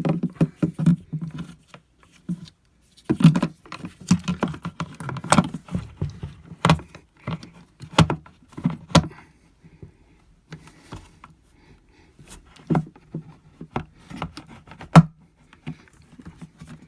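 Hands working a plastic RV toilet flush valve into its seat: irregular clicks, knocks and scraping of plastic parts, with brief lulls about two seconds in and around ten seconds in, and a sharper knock near the end.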